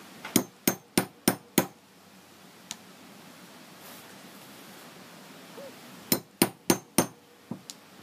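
Metal hammer striking a hole punch through a leather saddle billet on a poly punching pad. There are five sharp blows about three a second, a pause, then four more blows and two lighter taps near the end.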